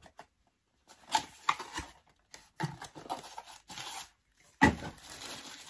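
A small cardboard advent calendar box being torn open and handled: irregular tearing and rustling of card and packaging, with a sharper knock about four and a half seconds in.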